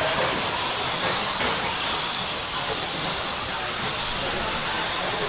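A field of electric 1/10-scale stock RC trucks racing on a packed-dirt track: a steady hiss of tyres and motors, with faint high motor whines over it.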